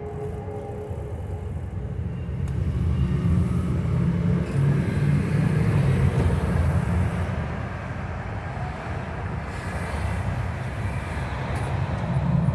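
Road traffic crossing: cars and a pickup truck driving over the crossing, a low rumble of engines and tyres that swells as vehicles pass close, loudest a few seconds in and again near the end as a car passes right by.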